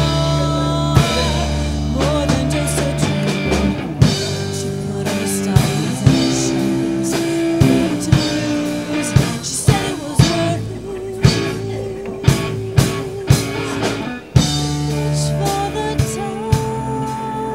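Rock music with a drum kit keeping a steady beat, guitar, and a singing voice.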